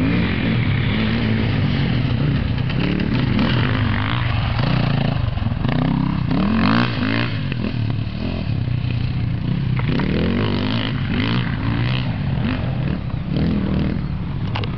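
Enduro motorcycle engines revving hard as the bikes ride the course, the engine note climbing and dropping again and again with the throttle.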